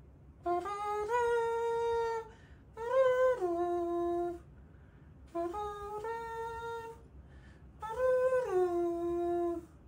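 A voice humming a slow tune in four drawn-out phrases. Each phrase holds a few steady notes that step up or down, with short pauses between phrases.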